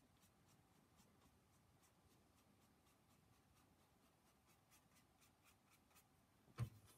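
Faint, quick scratchy strokes of a watercolour brush on paper, several a second, as short fur strokes are flicked in along the direction of growth. A single dull thump near the end.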